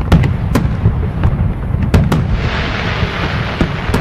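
Aerial firework shells bursting: a run of sharp bangs over a continuous low rumble, with a steady hiss setting in about halfway through.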